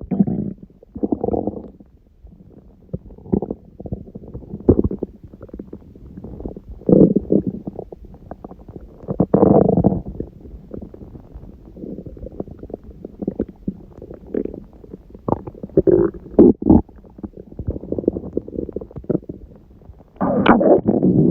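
Human stomach growling: irregular gurgles and rumbles coming in bursts, with a loud gurgle near the end. This is digestive gurgling hours after a large udon meal, which the owner puts down to her gut being surprised by gluten after a long break.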